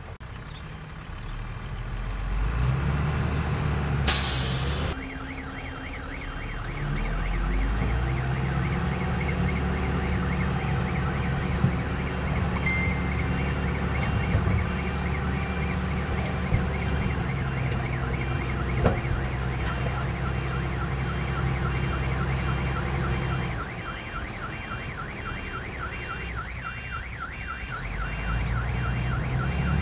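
Diesel engine of heavy earthmoving machinery running under changing load, with a backup alarm beeping in a fast, evenly repeated pattern through most of it. A short hiss lasting about a second comes about four seconds in.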